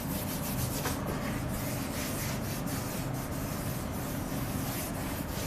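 Chalk being wiped off a blackboard: a steady rubbing and scrubbing.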